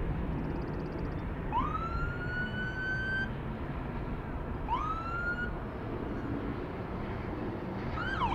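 An emergency vehicle siren sounds over a steady low rumble. It gives two rising wails that climb and level off, the first lasting about a second and a half and the second shorter, then switches near the end to a fast up-and-down yelp.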